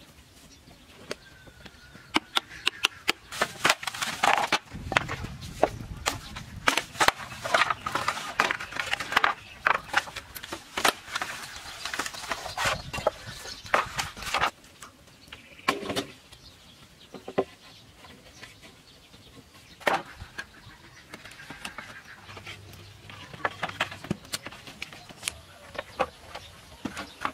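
Bamboo poles being worked by hand: a dense run of hollow knocks and clatter through the first half, then scattered single knocks.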